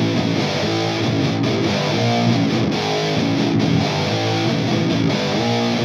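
Background music: a rock track with distorted electric guitar strumming.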